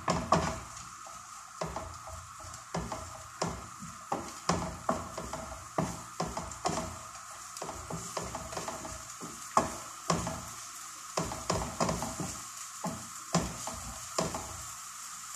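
Wooden spatula scraping and tapping against a frying pan in irregular strokes, while chopped onion and garlic sizzle in oil.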